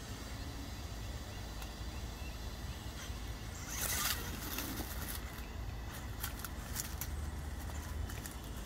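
RC rock crawler with a Castle 2280kv brushless motor whirring in short bursts as it crawls over stacked rocks. There is a brief louder rush of noise about four seconds in, and a few sharp clicks later.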